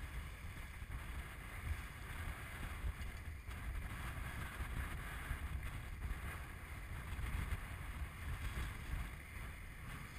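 Wind buffeting the microphone with a gusty low rumble, over a steady hiss of water rushing past the hull of a Farr 30 racing yacht heeled under sail.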